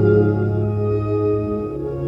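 Soundtrack music: slow sustained chords, organ-like, that shift to a new chord near the end.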